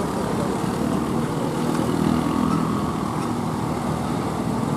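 Heavy truck's diesel engine running steadily as it climbs a steep grade.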